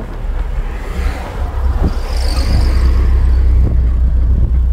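1989 Marlin Roadster driving with the top down: a low rumble of engine, tyres and wind that grows louder about halfway through. The car is shaking, which the occupants suspect comes from badly balanced wheels rather than the engine.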